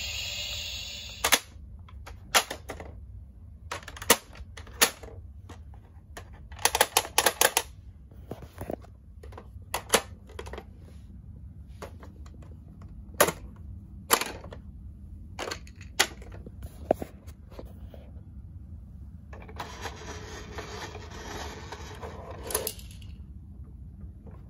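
Scattered sharp clicks and clacks of hard plastic parts and die-cast toy cars being handled on a Tomica toy parking garage playset, some coming in quick runs. Near the end comes a steady rushing noise lasting about three seconds.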